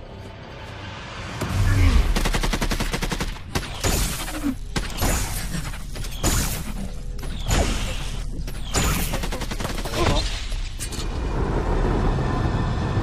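Action-film battle sound: a long burst of rapid automatic gunfire about two seconds in, followed by a string of heavy gunshots and blasts, with film score music underneath.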